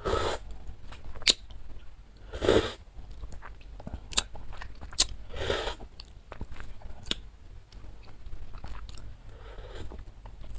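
A person slurping spicy noodle-soup broth from a wooden spoon, close to the microphone: three short slurps near the start, about two and a half seconds in and about five and a half seconds in, with sharp mouth clicks and lip smacks between them.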